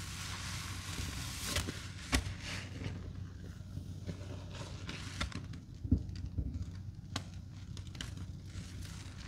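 Gloved hands squeezing and working sponges loaded with cleaning paste and Comet powder: soft wet crackling and squishing, with a few sharp pops about two, six and seven seconds in, over a steady low hum.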